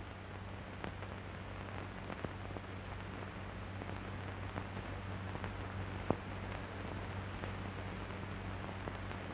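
Steady hiss and low hum of an old 1940s film soundtrack, with a few faint clicks of crackle.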